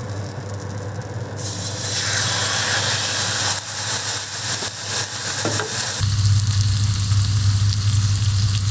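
Beef steak sizzling in a frying pan of hot melted butter. The sizzle jumps up about a second and a half in as the meat goes into the pan, and carries on as it sears over high heat. Near the end the sizzle thins and a low steady hum comes in under it.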